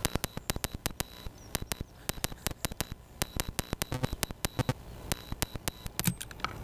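Many sharp, irregular clicks and knocks of hands working at a quadcopter's frame, tugging tight battery plugs out of their sockets, picked up through the camera mounted on the frame.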